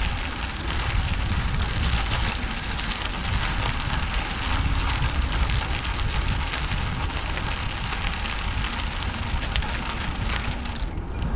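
Bicycle tyres rolling over a gravel path, a steady crackling crunch, with wind rumbling on the action camera's microphone. The crackle thins out just before the end.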